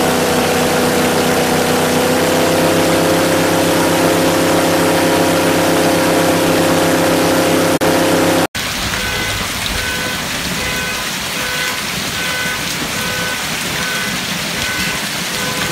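Airboat engine and propeller running steadily at high power, blasting wind of around 85–90 mph, its pitch rising slightly a couple of seconds in. It cuts off abruptly about halfway through, giving way to a steady rushing noise with a faint beep repeating about twice a second.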